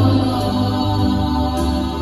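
Small vocal group singing a gospel song together into handheld microphones, holding long sustained notes.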